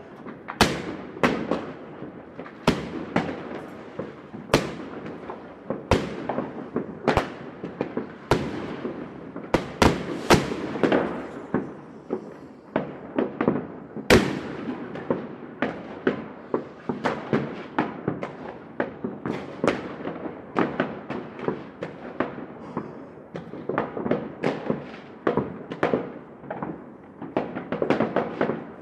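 Fireworks going off in a city: a continuous run of sharp bangs, roughly one to three a second, each echoing off the surroundings, over a steady background crackle of many smaller distant bursts.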